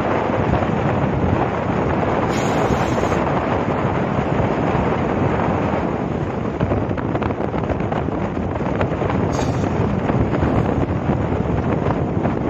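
Strong wind buffeting the microphone at an open window of a moving passenger train, over the train's steady running noise.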